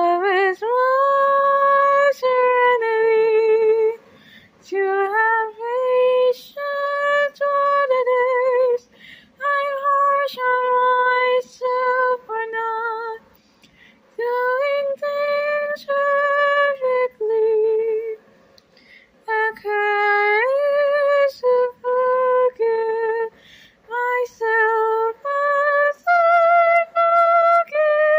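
A woman singing alone without accompaniment: a slow melody in short phrases with brief pauses between them, held notes with vibrato, and some notes scooped up into.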